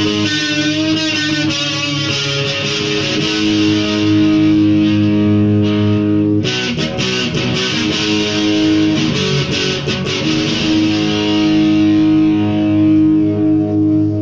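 Electric guitar chords held and left ringing, with a burst of fresh strumming about six seconds in, then a long chord sustaining to the end.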